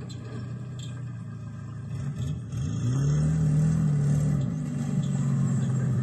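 Car engine running, then speeding up as the vehicle accelerates about two and a half seconds in, its pitch rising and holding before easing back to a steadier run.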